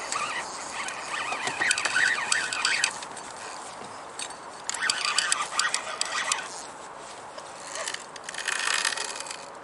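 Water splashing in three bursts, each a second or two long, as a seal thrashes at the surface with a hooked chinook salmon.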